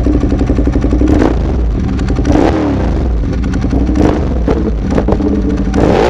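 Ducati Monster 821's L-twin engine, through an SC Project aftermarket exhaust, idling with several quick throttle blips, each rev rising sharply and falling back to idle.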